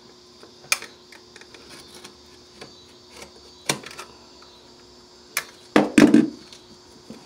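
Utility knife scraping and picking at a stubborn piece of old flooring stuck to a wooden subfloor: scattered clicks and short scrapes, with louder scraping about six seconds in.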